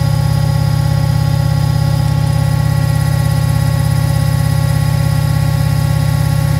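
Beko washing machine running at speed, most likely in a fast spin: a loud, steady low hum with a fast, even pulse and a high motor whine.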